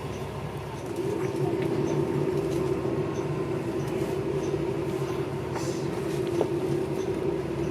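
Inside a moving city bus: the drivetrain runs with a low steady hum, and a steady whine joins about a second in as the bus gets under way.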